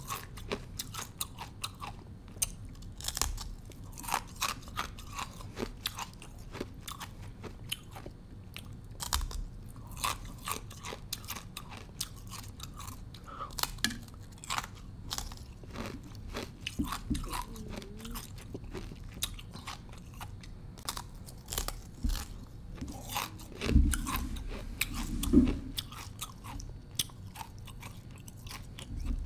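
Thin slab of ice bitten and chewed close to the microphone: a dense, continuous run of sharp crunches and cracking bits. Two louder, deeper crunches come a little before the end.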